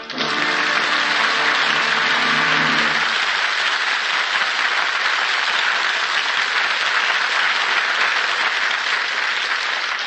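Studio audience applauding steadily, with the orchestra's last held chord dying away under it over the first three seconds.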